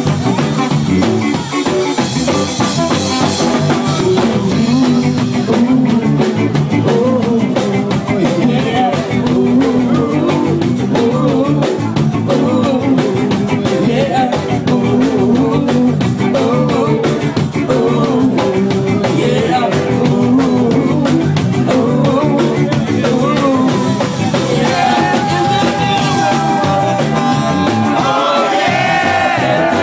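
Live rock band in full swing, with drum kit and electric guitars, played loud; a long held note rings out near the end.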